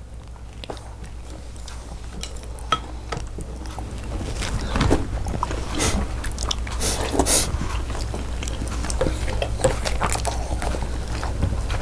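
Close-up eating sounds: chewing, with scattered clicks of utensils against dishes, getting busier about four seconds in.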